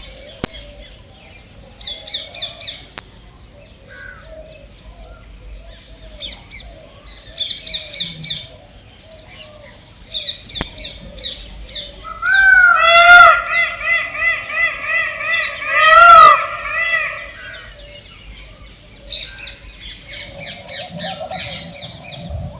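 Jungle bird chorus: small birds chirping in short high phrases, broken by a loud series of evenly repeated calls from a larger bird, about two a second, for several seconds in the middle. A faint steady drone runs underneath.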